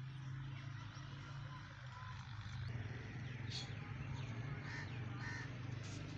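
Outdoor ambience: a steady low hum, with short birds' calls starting about halfway through.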